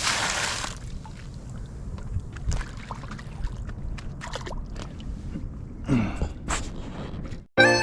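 Outdoor background noise: a steady low rumble with scattered faint knocks, and a short loud burst of hiss right at the start. Music comes in just before the end.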